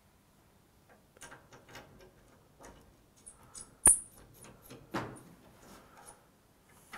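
Small metallic clicks and taps from fitting a stainless-steel bar handle to a glass shower door as its fixing is screwed on. A sharp click about four seconds in is the loudest, followed by a duller knock a second later.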